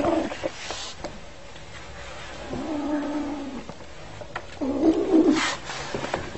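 Kitten growling in long, low, drawn-out calls of about a second each, with two sharp hisses. It is warning off someone who comes near the cigarette it is holding in its mouth.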